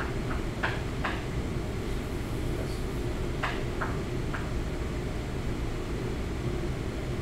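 Chalk tapping and scraping on a blackboard as short characters are written: a few brief strokes up to about a second in and again around four seconds in, over a steady low hum.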